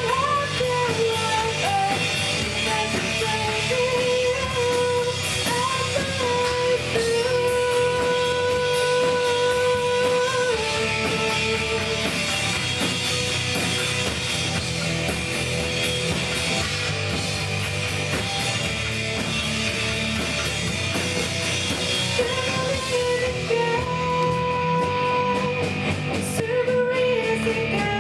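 Band playing an original rock-style worship song: a voice holds long sung notes over guitar and drum kit.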